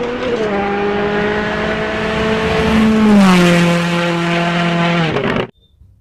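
Rally car engine running at high revs as the car approaches and passes, its pitch dropping as it goes by about three seconds in, where it is loudest. The sound cuts off suddenly near the end.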